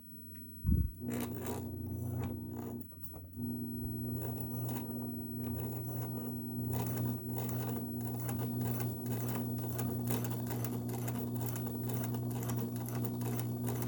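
Kenmore sewing machine running and stitching: a steady motor hum with fast, even needle ticks, which stops briefly about three seconds in and then starts again. A low thump comes just before the machine starts.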